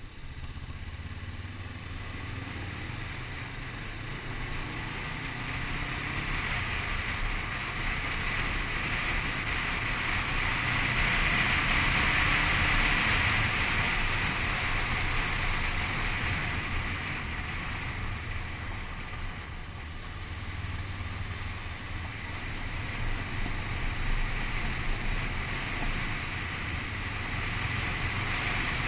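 Motorcycle engine running at road speed under heavy wind rush over the microphone. The wind noise swells louder about ten to fifteen seconds in and again near the end.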